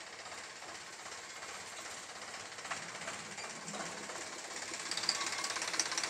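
Tractor diesel engine idling with a fast, even knock, growing louder toward the end.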